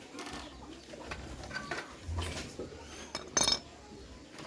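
Metal tools and parts clinking and knocking as they are handled, with one louder, ringing clink about three and a half seconds in.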